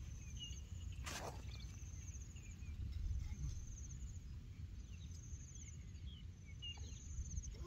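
Rural outdoor ambience: a steady low rumble with short high-pitched chirping trills repeating throughout, and one sharp click about a second in.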